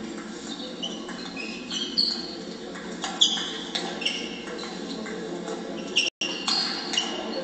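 Table tennis rally: repeated sharp clicks of the ball off bats and table, with short high squeaks of shoes on the hall floor, over a steady hall hum. The sound cuts out completely for a moment about six seconds in.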